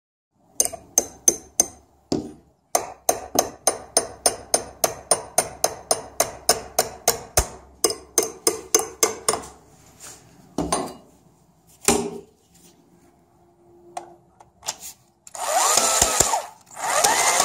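Cordless drill-driver screwing a window-frame anchor to the wall through a collared wall plug: a long run of regular clicks, about three or four a second, then a couple of short bursts, and near the end the motor runs with its pitch going up and down.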